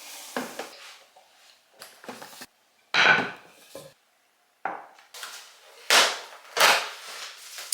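Household objects being handled and set down: a series of separate knocks and clatters, with a few abrupt dead-silent breaks between them.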